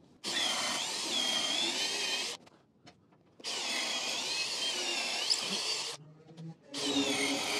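Cordless drill with a long bit boring pilot holes into a very hard old wooden beam, run in three bursts of about two seconds each with short pauses between. The pitch wavers as the bit loads up in the hard wood.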